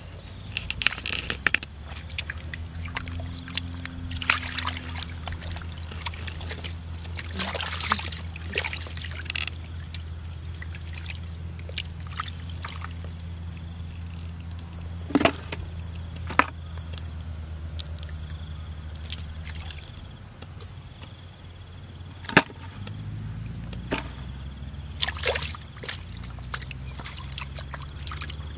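Hands digging and scooping in wet mud and shallow muddy water: irregular sloshes, trickles and wet slaps, with three sharper slaps in the middle and later part.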